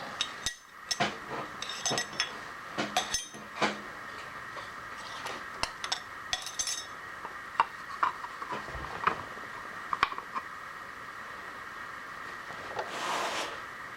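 Metal parts and tools clinking and ringing as they are handled, with a steady whine of a running shop machine underneath; a short burst of noise about 13 seconds in.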